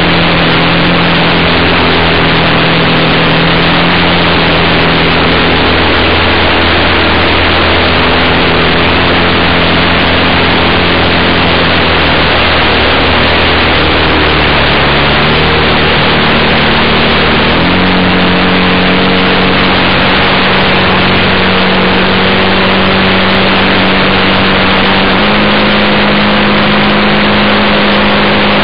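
Engine and propeller of a quarter-scale radio-controlled Piper J3 Cub model in flight, loud through the onboard camera's microphone under a heavy rush of wind noise. The steady drone changes pitch with the throttle: it drops a little about halfway through, then steps up about two-thirds in and again near the end.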